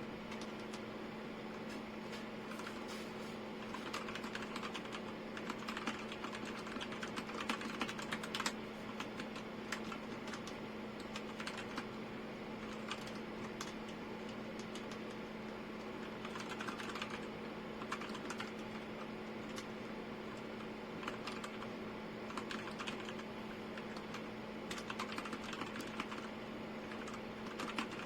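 Typing on a Royal Kludge RK G87 mechanical keyboard: fast, irregular key clicks in flurries over a steady low hum.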